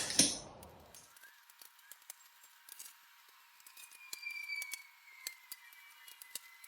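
Near silence with faint scattered clicks and a faint, thin high whistle.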